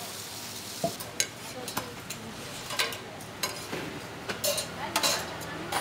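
Metal tongs clicking and clanking against a steel griddle drum while a large scallion flatbread is pressed and then gripped and lifted out. The clicks are irregular and come more often toward the end, over a low hiss of frying.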